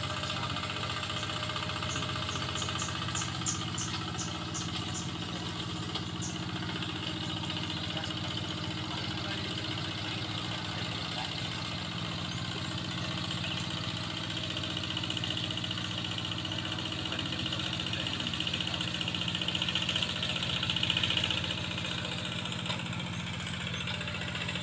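Two-wheel hand tractor's engine running steadily while it tills a flooded rice paddy. A quick run of faint, high ticks comes a few seconds in.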